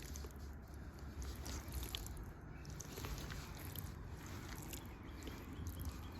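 Rubber boots squelching in wet mud: a scatter of short, soft, wet squelches and sucking sounds.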